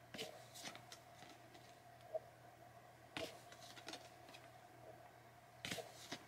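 Faint rustles and flicks of trading cards being handled and flipped through, a few short ones at the start, near three seconds in and near the end, over a low steady hum.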